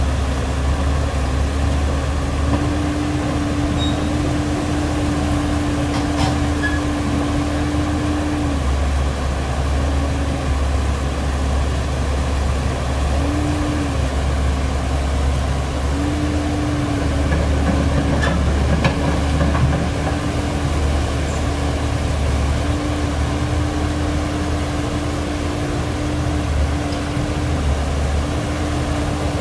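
Komatsu PC130F-7 hydraulic excavator's diesel engine running steadily while the arm and bucket work, its hum stepping slightly up and down in pitch every few seconds.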